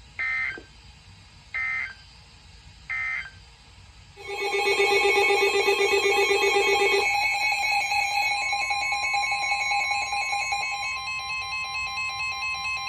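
Three short EAS SAME data bursts, the warbling end-of-message code that closes a weather warning. About four seconds in, a loud electronic alert tone starts and holds steady, shifting to a different set of pitches about three seconds later.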